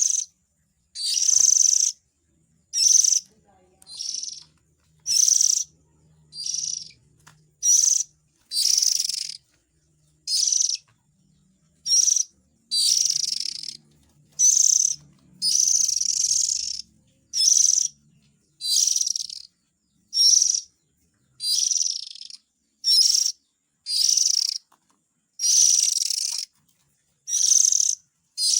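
Oriental magpie-robin (kacer) lure recording: harsh, hissing rasping calls repeated steadily, about one every second and a half with short silences between.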